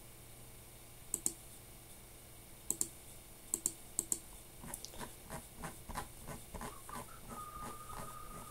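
Computer input clicks: four quick pairs of sharp clicks in the first half, like mouse double-clicks, then a run of softer ticks about three a second as the user works through a data table on the computer. A steady tone sets in near the end.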